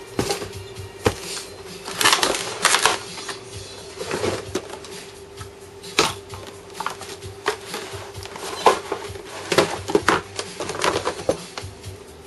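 Irregular clicks and knocks of a hard-plastic RC helicopter and its radio transmitter being handled and set down on a counter, over a faint steady hum.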